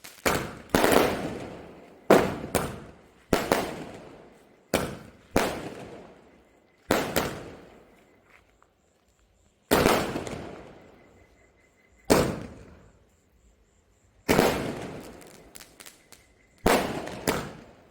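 A 60-shot firework cake firing, one sharp bang after another with a short echoing tail. The bangs come every second or so at first, sometimes in quick pairs, then spread out to one every two or three seconds as the cake nears its last shots.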